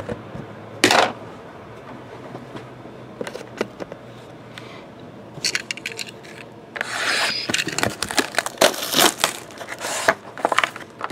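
Plastic shrink-wrap crinkling as it is pulled off trading card packaging, with knocks of cardboard boxes being handled. One sharp rustle about a second in, then small clicks, then a busy run of rustling and crinkling through the second half.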